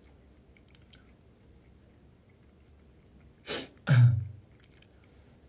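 A person's voice: a short sharp breath about three and a half seconds in, then a louder throaty burst right after. Faint room tone otherwise.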